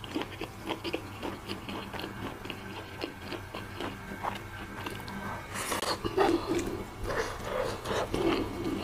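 Close-up chewing of crispy fried pork and rice: many small wet mouth clicks and smacks, with a louder burst of noise about five and a half seconds in.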